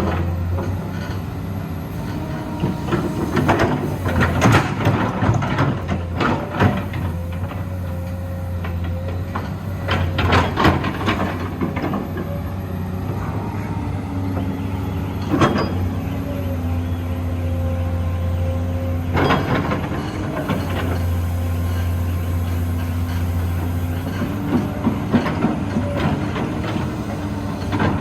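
Komatsu PC210LC-7 excavator running, its diesel engine holding a steady low drone. Over it a whine shifts and steps in pitch several times, with clusters of metallic clanks and knocks.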